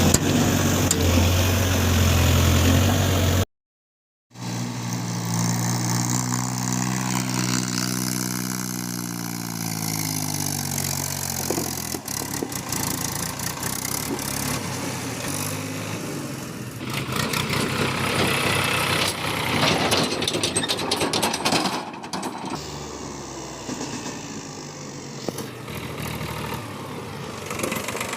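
JCB 3DX backhoe loader's diesel engine running with a steady low hum; after a brief cut, an engine note falls slowly in pitch over several seconds, then rougher machine noise carries on.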